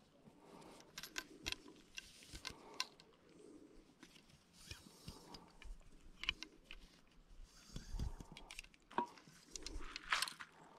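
Cloth rustling and scattered light clicks and taps as a fly rod is slid out of its cloth rod sock and its sections are handled, with a sharper rustle and click about ten seconds in.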